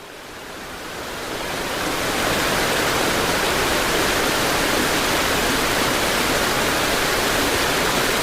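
Heavy rain: a steady, even rushing noise that fades in over the first two seconds, then holds level.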